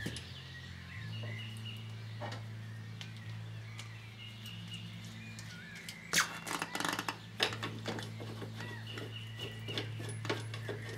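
Metal clicks and rattles as an aftermarket muzzle brake is handled and threaded onto a rifle barrel, busiest about six seconds in. Birds chirp faintly and a steady low hum runs underneath.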